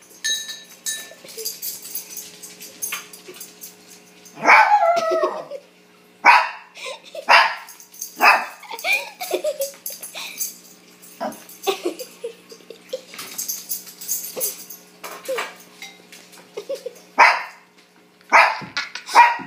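Small dog barking: a series of short yaps spread through, with one longer call that wavers in pitch about four and a half seconds in.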